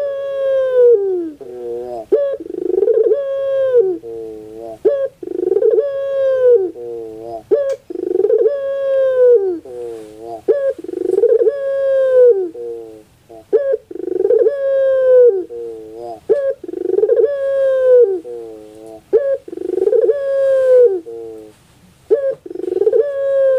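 Puter pelung turtle dove cooing over and over, a drawn-out coo repeated about every two and a half seconds, each one dropping in pitch at its end.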